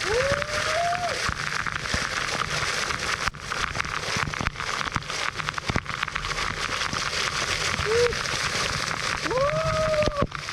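Waterfall pouring down on a person standing under it: a dense, steady rush of falling water with irregular spattering hits close to the microphone. A man's voice sounds a few long drawn-out notes near the start and again near the end.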